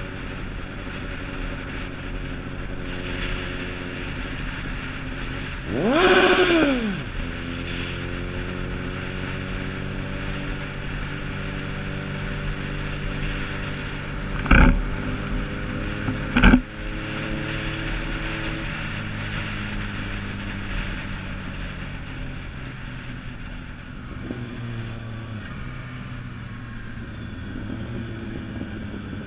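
Motorcycle engine running under way, heard from the rider's seat, its pitch shifting as the bike cruises. About six seconds in there is a loud quick rise and fall in engine pitch, like a throttle blip, and about halfway through two sharp knocks come two seconds apart.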